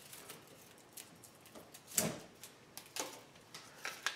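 Faint crinkling and small clicks as paper insulation and the stripped sheath of a 12-gauge cable are pulled away by hand, the sharpest click about halfway through.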